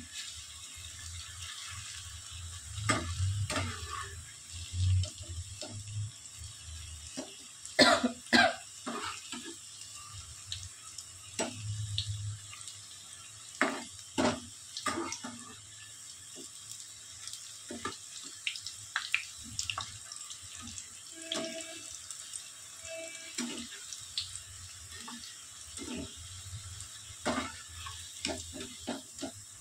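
Scattered clicks and knocks of kitchen utensils, a dozen or more spread irregularly, over a steady faint hiss.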